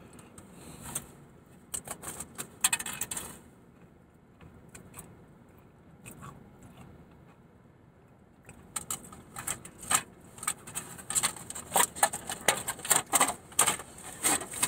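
Close crackling and crunching from biting into and chewing a crisp cannoli shell. There is a short burst about two seconds in, then a longer, denser run from about nine seconds on.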